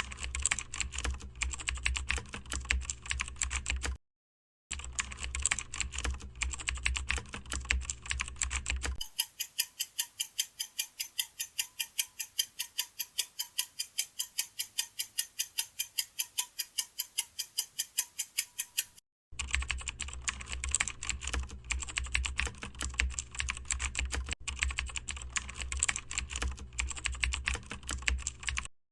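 Computer keyboard typing: rapid, uneven key clicks that stop briefly about four seconds in. In the middle stretch they give way to a steadier, evenly spaced clicking at about four clicks a second, then the rapid typing returns.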